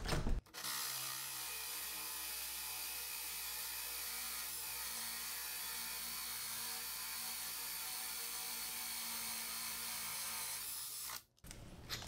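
Cordless drill running steadily as it drives a 2 1/8-inch bi-metal hole saw into a wooden door through a lock-installation jig, boring the door-knob hole. It starts about half a second in and cuts off abruptly near the end.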